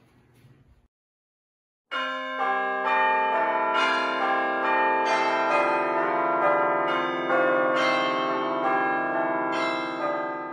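Bells ringing, a quick run of overlapping strikes about two a second, each tone ringing on under the next; it starts suddenly about two seconds in after a moment of dead silence and begins to fade near the end.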